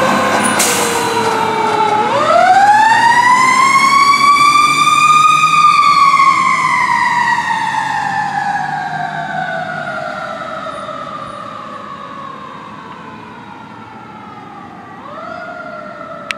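Fire engine siren wailing as the truck pulls away. It winds down, then rises to a peak about two seconds in, falls slowly while fading with distance, and rises again near the end. The truck's engine runs underneath during the first part.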